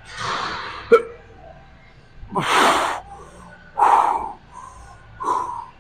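A man breathing out hard through pursed lips while curling dumbbells: four forceful exhalations, unevenly spaced over a few seconds. A short click comes about a second in.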